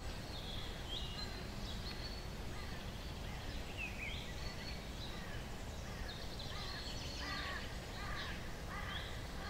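Outdoor ambience of birds chirping over a steady low background noise, with a run of lower repeated calls in the second half.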